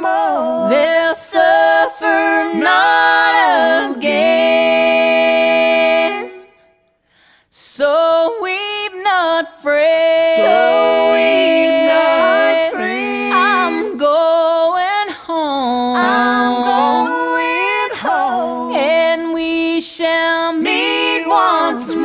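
Music: a woman's voice singing a slow song with little or no accompaniment, long held notes, with a brief pause about six and a half seconds in.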